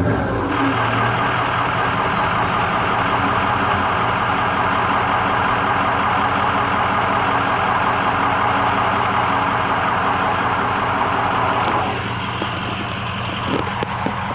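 Ford E350 van's 6.0 Power Stroke diesel V8 idling through a 4-inch exhaust with an Aero Turbine muffler, with a steady rush of turbo noise. A high turbo whistle falls in pitch over the first few seconds as the turbo spools down, and the sound drops quieter about twelve seconds in.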